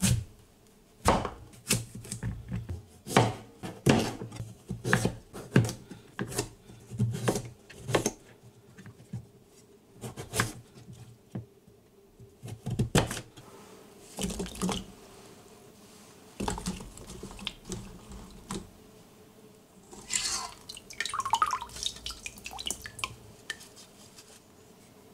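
Chef's knife cutting through raw sweet potato and striking a plastic cutting board: a series of sharp knocks, about one to two a second, thinning out after about eight seconds. Near the end, water splashing and dripping as the cut chunks are drained in a metal mesh strainer.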